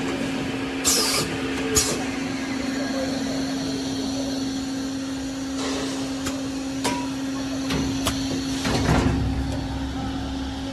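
Plastic pipe extrusion line running: a steady machine hum at one pitch, with a few short knocks and brief hisses, including a hiss about a second in.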